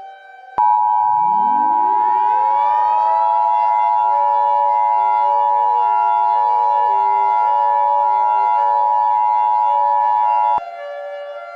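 Emergency Alert System two-tone attention signal, a steady dual tone, sounding for about ten seconds from half a second in and cutting off abruptly. Under it a civil defense siren winds up from a low pitch to a steady wail over about three seconds and keeps sounding after the attention tone stops.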